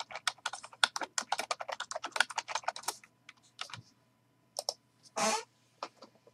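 Typing on a computer keyboard: a quick run of key clicks for about three seconds, then a few scattered clicks and one short, louder noise about five seconds in.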